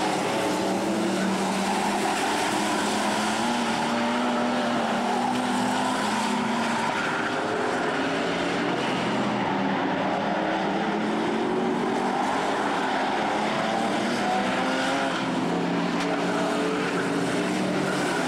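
Race car engines running laps on an oval track: a steady, loud engine drone whose pitch rises and falls gently as the cars speed up and ease off.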